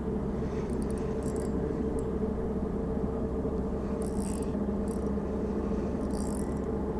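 A steady low mechanical hum, with a few short bursts of high scraping and rubbing from hands working a spinning reel and its line.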